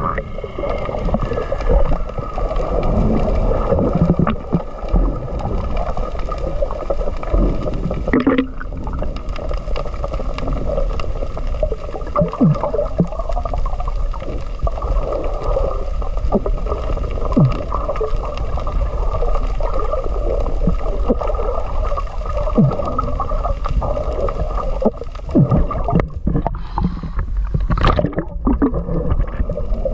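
Muffled underwater water noise picked up by a submerged camera: a steady low rushing with scattered short knocks and gurgles.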